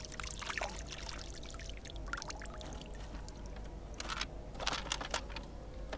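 Pond water pouring and dripping off a plastic toy MP5 held over the water after washing, with a few short splashes in the second half.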